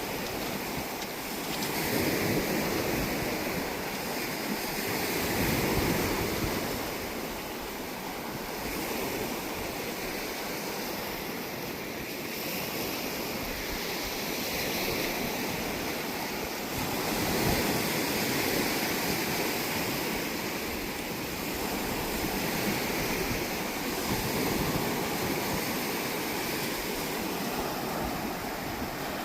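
Gulf of Mexico surf washing onto the beach, the wash swelling and easing every few seconds, with some wind on the microphone.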